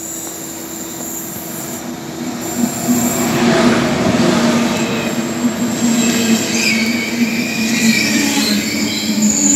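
Inside an ICE 4 high-speed train carriage: steady running noise with a low, even hum, growing louder about three seconds in. A wavering high wheel squeal comes in during the second half.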